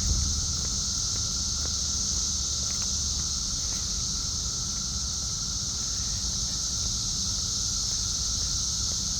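Dense chorus of periodical cicadas, a steady high, unbroken hiss-like drone, over a low rumble.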